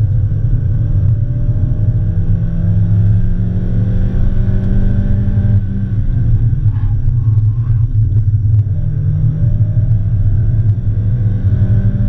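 A stock 2003 Mazda Miata's 1.8-litre four-cylinder engine is heard from inside the cabin, pulling at speed on track with a deep rumble. Its pitch climbs slowly, drops briefly about six seconds in, then climbs again from about eight and a half seconds.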